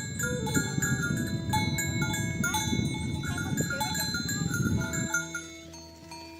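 Livestock noise from oxen being herded, with a dense rumble and a few short calls, that cuts off abruptly about five seconds in. Light music with stepping melodic notes plays throughout.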